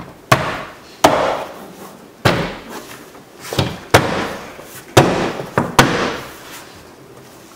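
A car's interior door trim panel being struck by hand about eight times, a series of sharp knocks: pushing the panel's retaining clips home so it seats against the door.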